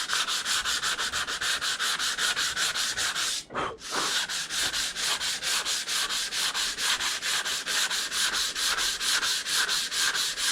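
Hand sanding of a metal saw blade with 120-grit sandpaper: rapid back-and-forth rubbing strokes, about four or five a second, with one brief pause about three and a half seconds in. The sanding takes the blade down to bare metal, removing rust before a clear coat.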